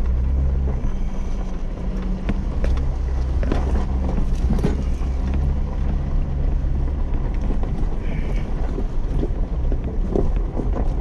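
Jeep crawling along a rough dirt trail, heard from inside the cab: a steady low engine drone with wind noise and scattered knocks and rattles from the body and suspension over the bumps.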